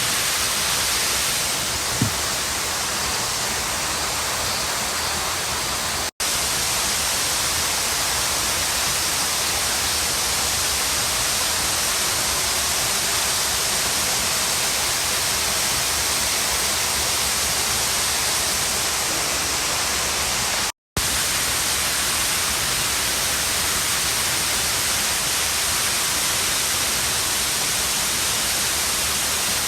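Waterfall: a steady, loud rush of falling water. The sound cuts out for an instant twice, about six seconds in and again about twenty-one seconds in.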